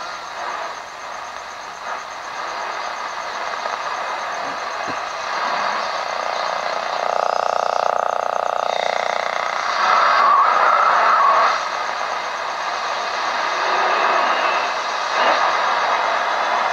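Sonatec PRI-037U portable radio hissing with AM static as its tuning dial is turned between stations. Near the middle a steady buzzing band comes in with a whistle sliding down in pitch, and a couple of seconds later faint wavering tones come through the noise.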